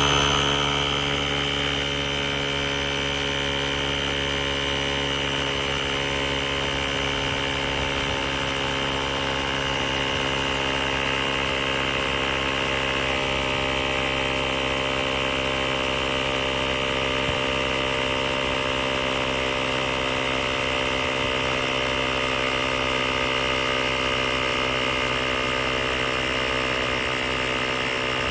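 AstroAI L7 portable electric air pump running, its small motor-driven piston compressor holding a steady, even-pitched mechanical hum.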